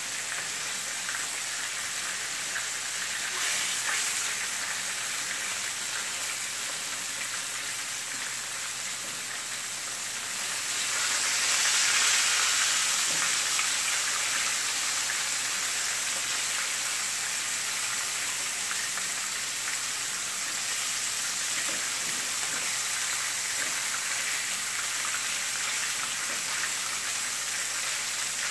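Pieces of butterfish sizzling in shallow hot oil in a skillet, a steady hiss that swells louder about eleven seconds in and then settles.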